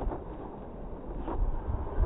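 Small RC off-road buggy scrabbling on a loose sand slope and tumbling over, with a bump near the end, under gusty wind on the microphone.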